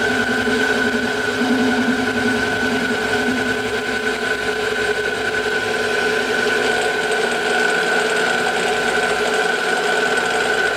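PM-727M milling machine's spindle running at a steady speed with a constant high whine, while the quill is fed down by the fine-feed handwheel to bore a bolt-head pocket.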